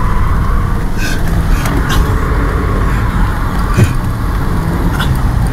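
Car engine running and tyre and road noise heard from inside the cabin as the car is driven, with a few sharp clicks or knocks about two, four and five seconds in.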